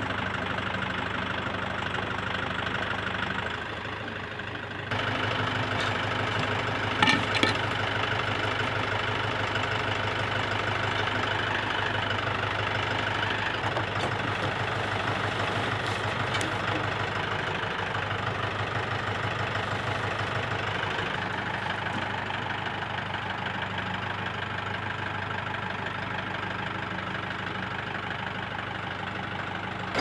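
Mahindra 4550 tractor's diesel engine running steadily, with a couple of sharp knocks about seven seconds in.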